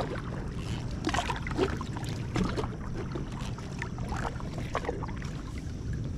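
Water splashing and lapping around an inflatable kayak in short, irregular bursts over a steady low rumble.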